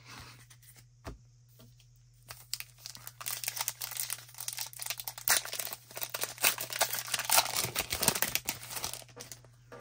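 An Upper Deck MVP hockey card pack's wrapper being torn open and crinkled: a dense run of crackling that starts about two seconds in and goes on until just before the end.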